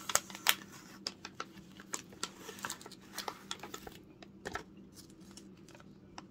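Plastic deli-meat package crinkling and clicking as it is handled and opened: a quick run of sharp crackles through the first four seconds or so, then fewer and fainter.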